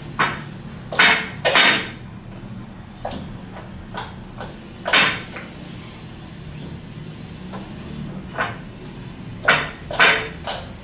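Freshly borax-activated slime being squeezed and kneaded by hand, giving about a dozen irregular wet squelches and squishes.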